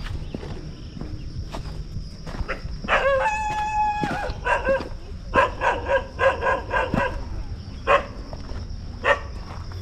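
A dog barking. One drawn-out howling cry about three seconds in is followed by a quick run of barks, about three a second, then a few single barks.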